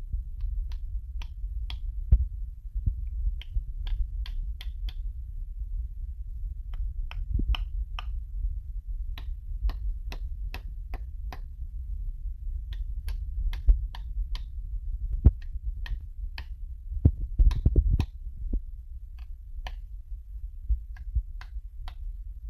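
Small hammer tapping a new pinion seal into the pinion bearing housing of a Ford 9-inch differential: light metal taps at an irregular one or two a second, with a few heavier blows about three-quarters of the way through.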